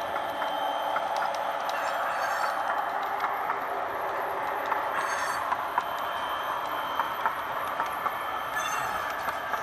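HO-scale model coal train cars and caboose rolling along metal track: a steady running noise with irregular sharp clicks as the wheels cross rail joints.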